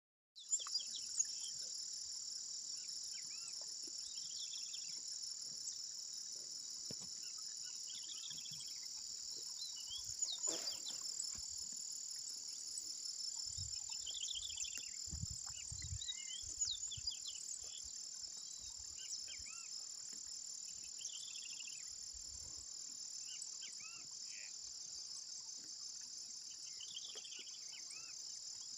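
Steady, high-pitched chorus of insects running without a break, with birds calling in short bursts of chirps every few seconds over it.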